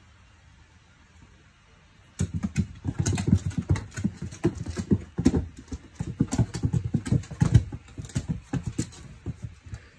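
A cat's paws thudding and scrabbling rapidly on a laminate floor as it runs and pounces after a laser dot, starting about two seconds in and going on in quick irregular beats.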